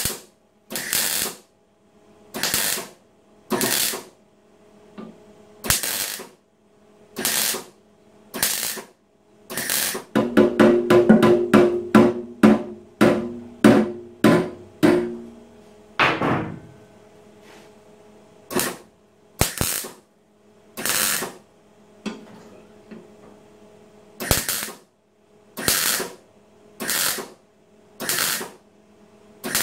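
MIG welder stitch-welding a new steel patch into a motorcycle fuel tank with 0.8 mm wire: short bursts of arc crackle about half a second long, roughly one every second and a half, with a quicker run of short pulses partway through.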